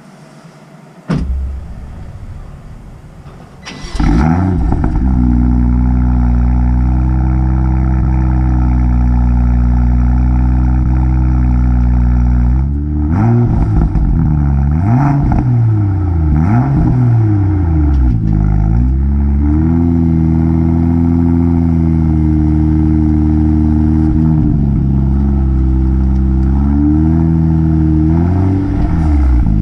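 BMW M2 LCI's S55 twin-turbo inline-six on its stock exhaust, heard at the tailpipes: it is started and fires about four seconds in, settles into a steady idle, then takes a series of quick throttle blips in the middle and a few more near the end.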